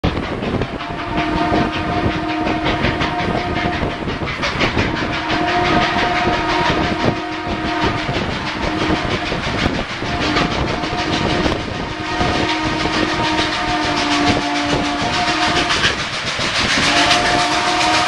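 Train whistle sounding a series of long blasts, several notes sounding together as a chord, over the rapid clatter and rush of the moving train.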